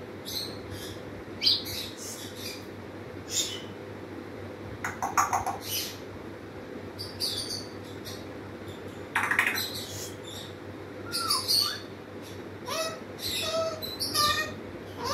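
Congo African grey parrot making scattered short chirps and clicks, with a few brief gliding whistles and pitched notes near the end.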